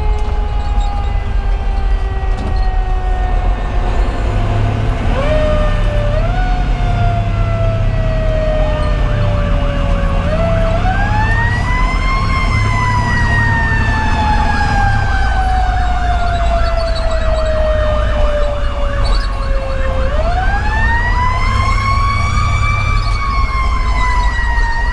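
Federal Q2B mechanical siren wailing from inside the fire engine's cab: its pitch coasts slowly downward, gets two short pushes around five and six seconds in, then winds up twice to a peak and slowly winds down each time. Under it runs the steady low drone of the truck's 470 hp Detroit Series 60 diesel.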